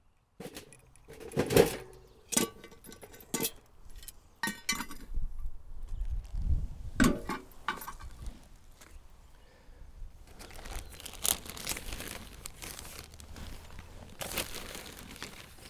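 Metal clanks and knocks as a cast-iron Dutch oven is set back down in a metal pan, the loudest about a second and a half in. From about ten seconds on, a plastic zip-top bag crinkles as it is handled and opened, loudest near the end.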